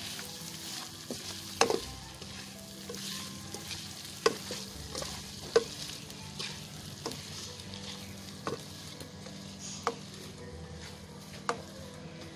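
Prawns frying in masala in a non-stick wok, with a steady sizzle as they are stirred with a slotted spoon. The spoon knocks sharply against the pan every second or two.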